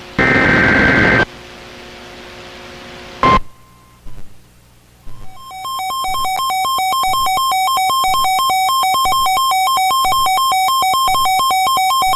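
The last burst of a NOAA Weather Radio SAME digital alert header, a harsh buzzing data squawk about a second long, ends about a second in. A click and a few short blips follow. From about five seconds a loud pulsing two-pitch electronic attention tone sounds, announcing the severe thunderstorm warning that follows.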